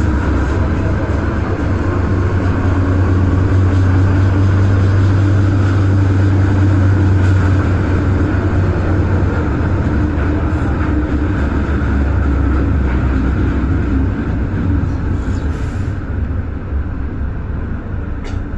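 MTR Tsuen Wan line M-train electric multiple unit running through a tunnel, heard from inside the train: a steady, loud rumble of wheels on rail and traction equipment with a low hum. It eases off over the last few seconds as the train slows into a station.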